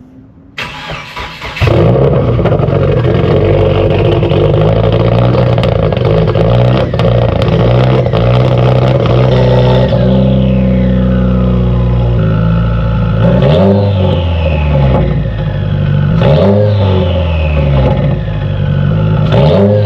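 Cold start of a 2019 Subaru WRX's 2.0-litre turbocharged flat-four. The starter cranks for about a second before the engine catches. It runs at a high cold idle that drops lower around halfway through, and the revs rise and fall briefly three times near the end.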